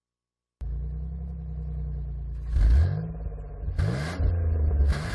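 After a brief silence, stock-car racing engines start up and run loudly, their pitch swinging up and down three times, about a second apart, with a rush of noise each time.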